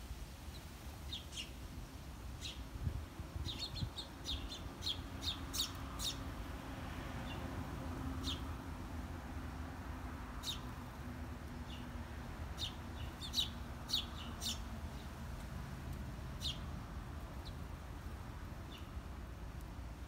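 House sparrows chirping: short, high chirps in scattered bursts, busiest about four to six seconds in and again about twelve to fifteen seconds in.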